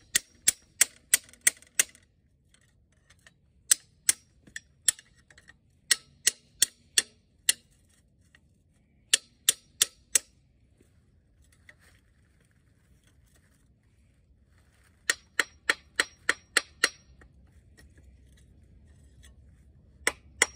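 Hammer blows on a steel pry bar set against the front timing gear of a Wisconsin V4 engine, trying to drive the gear off: sharp metallic strikes with a short ring, in quick bursts of four to seven, about four a second, with pauses between. The gear is stuck and does not move.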